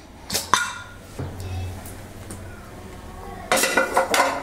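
Metal clinks as the weight is lifted off a Prestige Deluxe aluminium pressure cooker, then a longer scraping clatter about three and a half seconds in as the lid is worked open.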